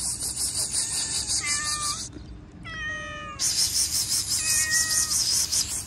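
Stray cats meowing: three separate meows, the middle one drawn out and falling in pitch. Under them runs a loud, pulsing high rasping hiss that comes in two stretches of a couple of seconds each and cuts off abruptly.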